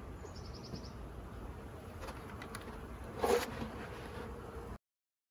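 Honeybees buzzing steadily around an open hive during a colony combine, with a brief louder burst about three seconds in. The sound cuts off suddenly near the end.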